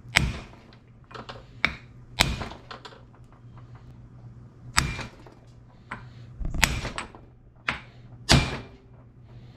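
Ball-peen hammer striking a steel center punch against the piston nut of a hydraulic hoist cylinder: about eight sharp metallic strikes at uneven intervals. The nut is being peened so it cannot back off the rod.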